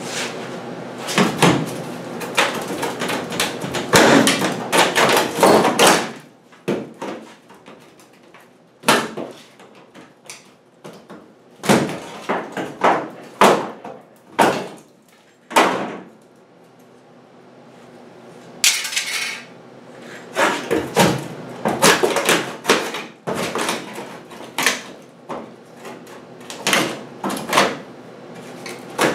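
Hammer driving a chisel into the rusted sheet-metal floor pan of a 1963 Chevy C10 cab, cutting it out: sharp metallic blows in irregular runs, with a short pause past the middle followed by a brief scrape of metal.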